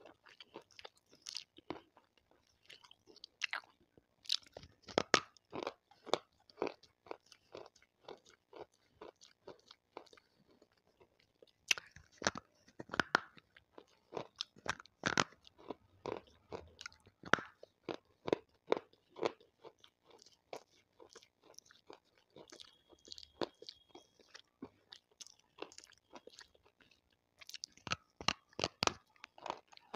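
Water-soaked slate stone being bitten off and chewed: a long run of sharp crunches, close to the microphone, easing off briefly about ten seconds in and again near the end.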